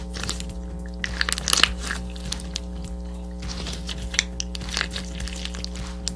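Clear slime loaded with jelly cubes and fruit-slice charms squeezed and stretched by hand, giving dense crackling and popping clicks that come thickest about a second in and again around four seconds. Steady background music runs under it.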